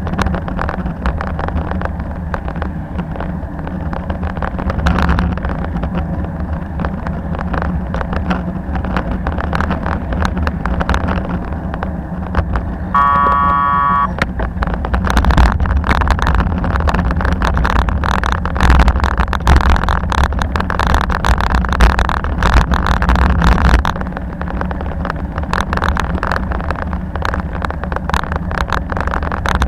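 Ride noise of a bicycle picked up by an action camera: a steady rumble of tyres and wind with frequent rattling clicks over bumps. About halfway through, a short pitched ringing tone sounds for about a second.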